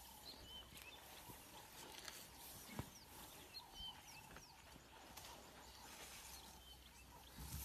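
Near silence of open bush, with faint, scattered short chirps of wild birds.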